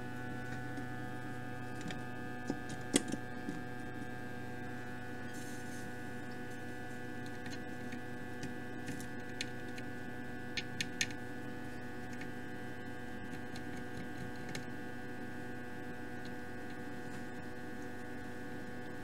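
Steady electrical mains hum with many overtones. A few faint clicks and ticks come around three seconds in and again around ten to eleven seconds in.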